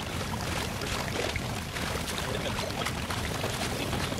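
Steady rushing of water along the hull of a sailboat under way, with a constant low rumble of wind on the microphone.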